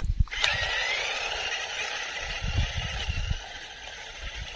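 Toy RC monster truck's small electric motor and gears whining as it drives off at speed. The whine rises in pitch at first, then fades as the truck draws away.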